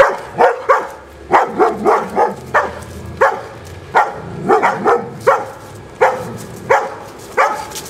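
German shepherd barking over and over, sharp barks coming in quick uneven runs, at times two or three within a second.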